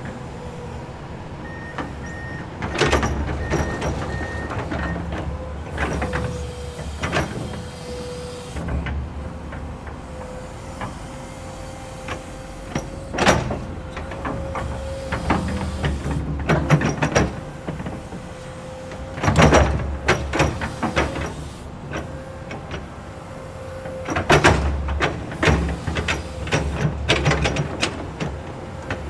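Komatsu hydraulic excavator working: the engine runs steadily with a constant whine, its load swelling in surges every few seconds, amid sharp metallic clanks and knocks. A run of short high beeps sounds about two seconds in.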